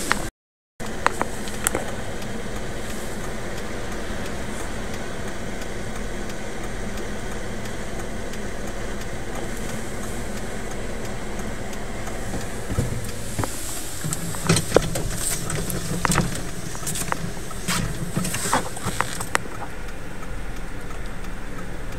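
Steady rumble of a car's engine running, heard from inside the cabin, with a brief dropout just after the start. A scatter of sharp taps and knocks comes in over the later part.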